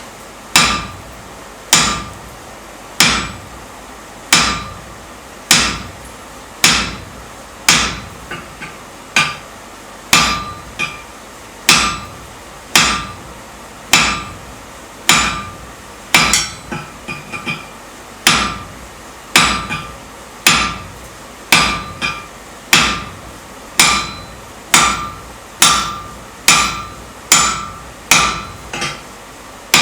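Hand hammer striking hot steel on an anvil while forging, about one blow a second with a short metallic ring after each. A few lighter, quicker taps fall in between, around 8 s and 17 s.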